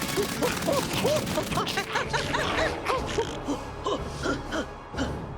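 Cartoon characters' wordless vocal sounds: a rapid string of short gasps and exclamations, some rising and some falling in pitch, mixed with short sharp sound effects and music.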